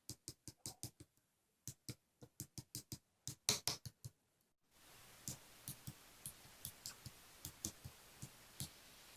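Slime being pressed and squeezed by hand, giving a faint run of soft clicks and pops, about three to four a second, loudest around the middle.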